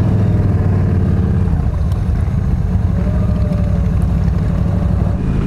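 Yamaha V Star 1300 V-twin engine running steadily as the motorcycle pulls away and rides at low speed. A continuous low drone is heard from on the bike.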